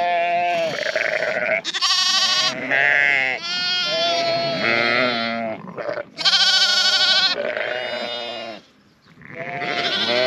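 Ewes and young lambs bleating, higher and lower calls overlapping almost without pause, with a short lull about nine seconds in. The ewes and lambs are calling to each other to pair up after being turned out together into the field.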